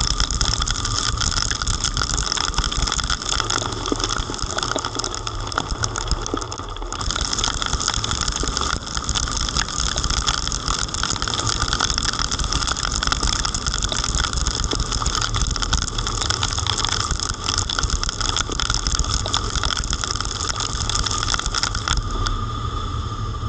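Heavy rain pelting a camera on the outside of a moving car, mixed with wind rush and tyre noise on the wet road: a dense, steady hiss full of drop hits over a low rumble. The noise shifts abruptly twice, about a third of the way in and near the end.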